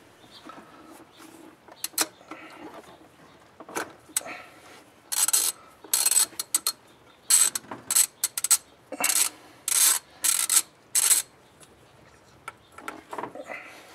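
Hand socket ratchet clicking on its back-strokes as it turns a bolt at the throttle body. A few faint clicks come first, then from about five seconds in a quick series of about ten short bursts of ratcheting.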